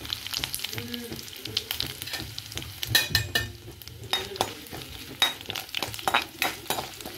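Tadka of cumin, mustard seeds, garlic, curry leaves and dry red chillies sizzling and crackling in hot oil in a pan. In the second half, a metal spoon stirs and scrapes against the pan.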